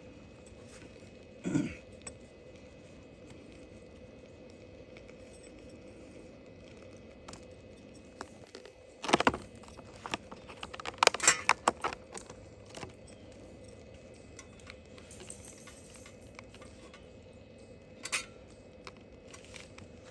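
Plastic food tray and titanium chopsticks being handled on a wooden table: scattered sharp clicks and clinks, with a quick flurry of them about halfway through.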